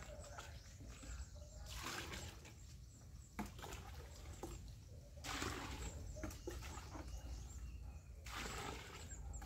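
Water poured from a plastic scoop onto vegetable plants and soil, three splashing pours each lasting about a second, with faint bird chirps in between.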